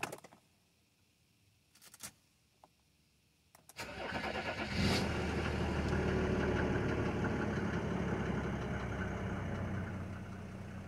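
A few light clicks, then about four seconds in the Mercedes W140 300SD's 3.5-litre inline-six turbo diesel starts. It flares briefly as it catches and settles into a steady idle.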